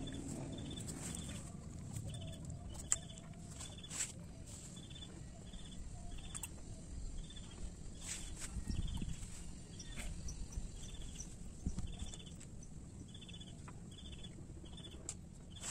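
An animal, bird or insect, calling a short high note over and over at an even pace, about every three-quarters of a second, over a steady low rumble with a few sharp clicks.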